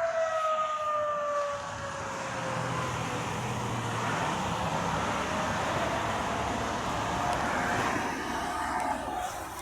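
Outdoor tornado warning siren sounding its test tone, which falls in pitch and fades over the first two seconds. A car passing close by then covers it with a steady rush of tyre and engine noise, and the siren tone comes back faintly near the end.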